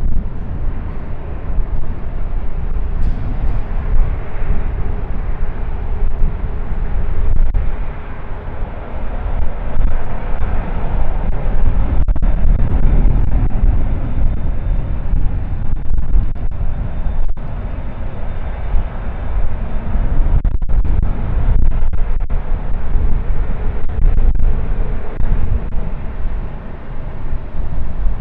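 Airbus A380's jet engines running at taxi power as the airliner rolls past close by: a loud, steady deep rumble with a faint high whine.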